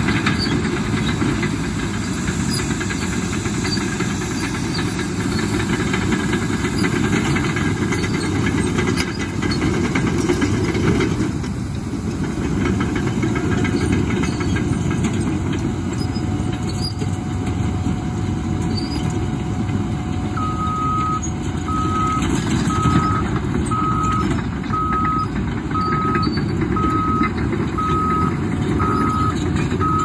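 Caterpillar D5R2 XL bulldozers working, their diesel engines and crawler tracks running steadily under load. About twenty seconds in, a reversing alarm starts beeping at an even pace of about one beep a second as a machine backs up.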